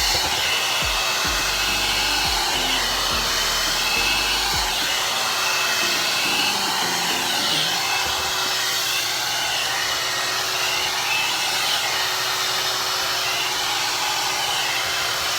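One Step hot air brush (hair dryer and styler) blowing steadily on its low setting while drying wet hair, a continuous noisy rush of air. A few low bumps from handling come in the first five seconds.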